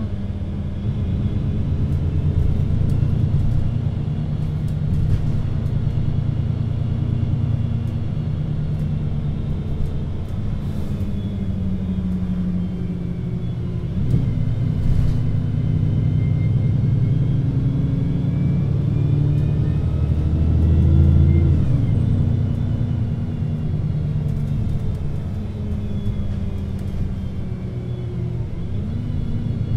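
VDL Citea LLE 120 city bus engine with its Voith automatic gearbox, running under way: a deep, continuous engine drone whose pitch rises and falls as the bus speeds up and slows. Fainter whining tones glide up and down with it, and the drone swells loudest about two-thirds of the way in.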